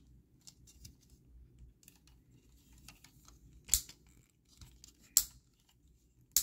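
Hard plastic parts of a Takara Tomy Job Braver transforming toy being handled and pegged together: faint small rattles and ticks, then three sharp clicks in the second half as pieces are pressed into place.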